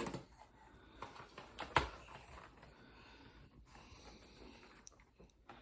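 Faint handling noise: a few light clicks and taps, the sharpest about two seconds in, as packaged die-cast model cars are picked up and set down.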